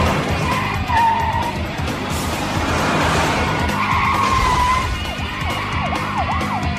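Car chase soundtrack: car tyres squealing and engines running over background music, with squeals standing out about a second in and again around four seconds.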